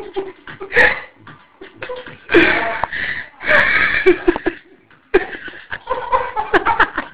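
People laughing in repeated bursts, the longest and loudest a few seconds in, with a quicker run of short laughs near the end.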